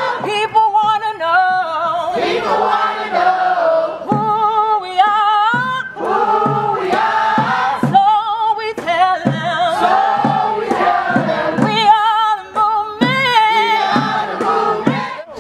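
A group of voices singing a song together, in a choir-like sound with a wavering, held melody sung in phrases.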